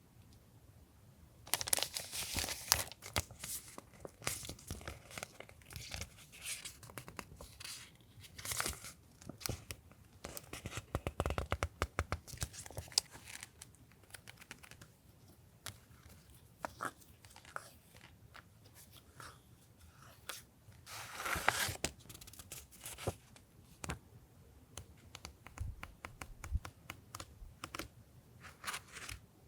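Packaging being handled at a desk: plastic and paper wrappers crinkling and tearing, with many small clicks and taps and louder rustling bursts near the start and about two-thirds of the way in.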